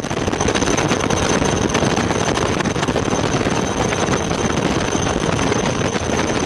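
Loud steady rushing engine noise with a thin high-pitched whine over it. It sets in abruptly and fades out at the end.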